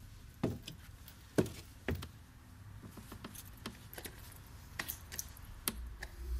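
A metal key clicking and scraping as it is pushed into and worked in a door lever lock, a string of small sharp clicks. Before it come three dull thuds about half a second to a second apart.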